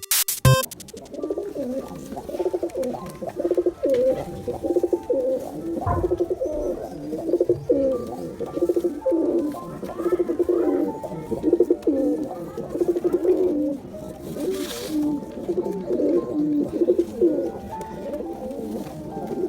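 Domestic pigeons cooing over and over, low rolling coos in a string of phrases, a male and female calling.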